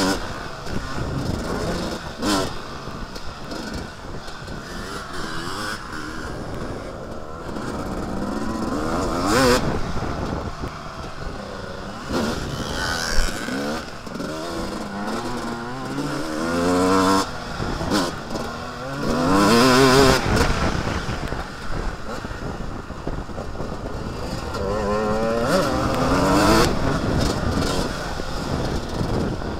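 Dirt bike engine ridden on a motocross track, revving up and easing off again and again, its pitch climbing in several rising sweeps, with wind rushing over the helmet-mounted microphone.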